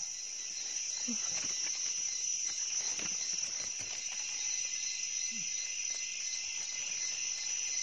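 Steady chorus of forest insects, a continuous high-pitched drone, with a few faint rustling clicks over it.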